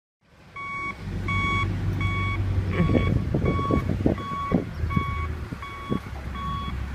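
Backhoe loader's reversing alarm beeping steadily, about three beeps every two seconds, over the steady rumble of its diesel engine. A run of short knocks and creaks comes between about three and six seconds in as the machine works the ash logs.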